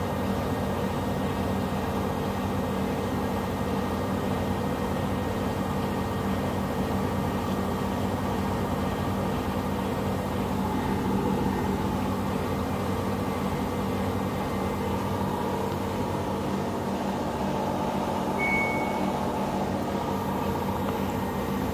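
Empty front-loading washing machine drum spinning at steady speed, a constant motor hum on the spin of a quick wash. A short high tone sounds near the end.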